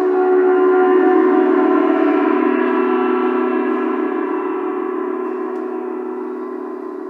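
Large wall-hung gong ringing: a dense wash of many overlapping tones that is loudest about a second in, then slowly dies away.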